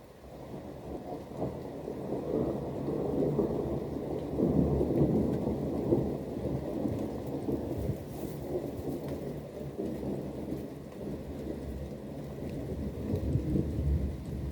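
Rolling thunder over rain: a deep rumble builds over the first few seconds, peaks, eases, then swells again near the end.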